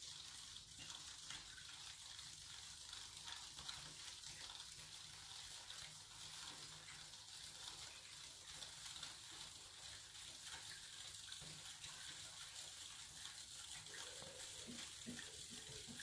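Faint, steady fizzing and light stirring of a stainless steel bowl of vinegar and baking soda solution, the fizz coming from the soda still reacting with the vinegar as it is stirred in.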